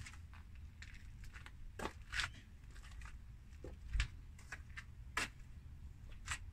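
Scattered light clicks and crinkly rustles of small items being handled, about five sharper ones spread through, over a low steady rumble.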